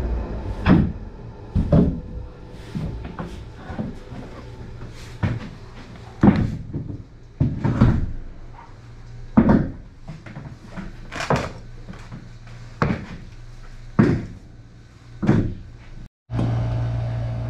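Heavy concrete blocks with steel handles being set down and stacked by hand, making a dozen or so sharp knocks and thuds at irregular intervals of about a second.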